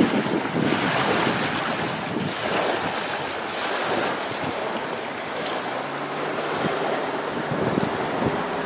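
Wind rushing over the camera microphone, with small waves washing onto a sand beach.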